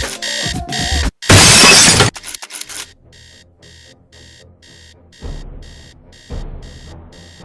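Electronic alarm clock beeping in quick, even pulses, cut off about a second in by a loud smashing crash sound effect with bits clattering for about a second after. Fainter beeping picks up again about three seconds in, over background music.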